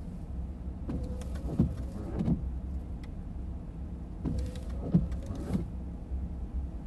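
Car idling with a steady low rumble heard inside the cabin, with soft thuds that come in groups of three, about a second in and again around four and a half seconds in.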